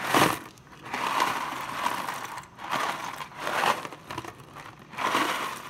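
A cardboard pasta box being handled, with dry rotini rattling inside, in several short rustling bursts.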